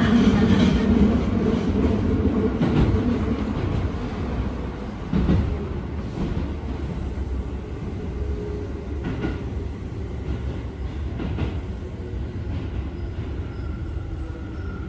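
Keio 7000 series electric train running, a steady low rumble with a few wheel clacks over rail joints. The sound eases off over the first few seconds, then holds steady.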